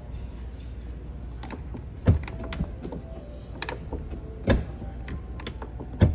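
A scatter of sharp clicks and knocks with three louder thumps, about two, four and a half and six seconds in, over a steady low hum.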